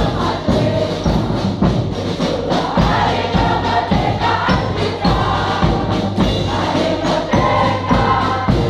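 A large group of students singing together as a choir, backed by a military brass marching band with sousaphones and a bass drum keeping a steady beat.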